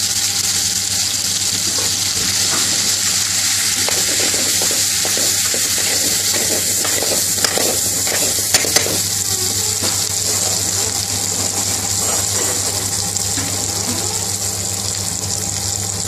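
Pre-cooked lentils sizzling and frying in hot oil with chopped garlic in an aluminium pan, stirred with a metal ladle: a steady sizzling hiss with scraping, and a few sharp clinks of the ladle on the pan about eight to nine seconds in. A steady low hum runs underneath.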